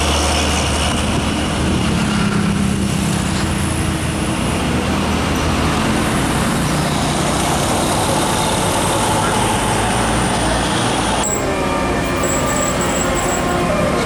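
Heavy diesel lorries passing and labouring up a hill, engines running under load over steady road-traffic noise. The sound changes abruptly about eleven seconds in.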